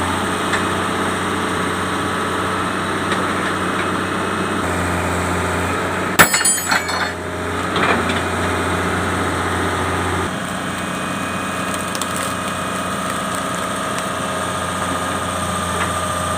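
Excavator's diesel engine running steadily, with a loud burst of sharp metal clanks about six seconds in and a smaller knock shortly after, from work on the track chain.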